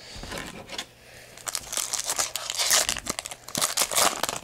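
Foil wrapper of a 2010 Topps Unrivaled football card pack being torn open and crinkled by hand. It is a dense, crackly rustle that starts about a second and a half in and runs almost to the end.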